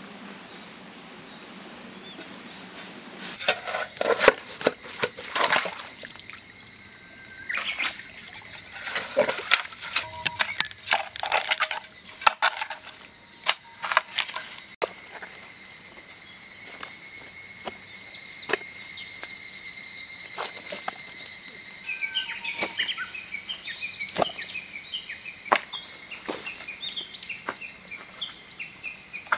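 A hand hoe chopping into wet soil, a run of sharp strikes that thin out later, over a steady high drone of insects.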